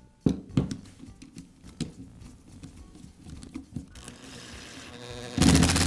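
Light knocks and clicks of plastic and metal motor parts being handled, then a cordless screwdriver whirring briefly near the end as it drives a screw to fasten the motor field into the sander's plastic housing.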